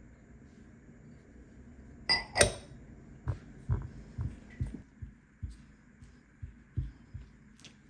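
Two sharp, ringing clinks of hard objects knocked together, then a run of about nine soft, dull thumps, roughly two a second, over a faint steady hum.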